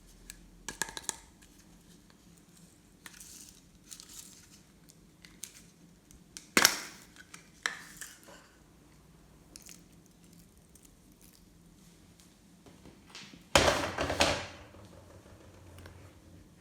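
Hands mixing things into glossy slime: scattered sharp clicks and crinkles. The loudest sharp sound comes about six and a half seconds in, and a dense run of crackling clicks comes around fourteen seconds.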